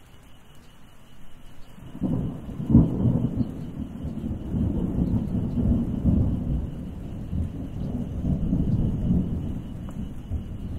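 Thunder: after a quiet start, a deep rumble begins about two seconds in, breaks into a sharp crack just after, then rolls on unevenly.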